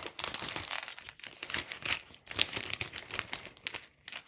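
Clear plastic bag crinkling as it is handled by hand, a busy irregular crackle and rustle.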